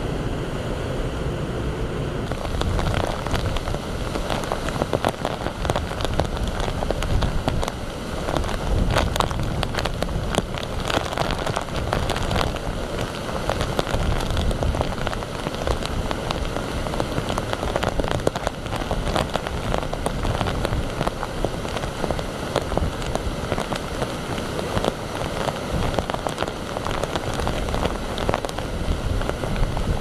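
Heavy typhoon rain pouring down: a dense, steady hiss thick with crackling drops, with a low rush of water beneath it. For the first couple of seconds, before the rain takes over, storm surf and wind are heard instead.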